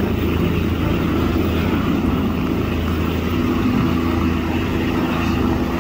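Light helicopter hovering just above the ground, its rotor and engine running steadily.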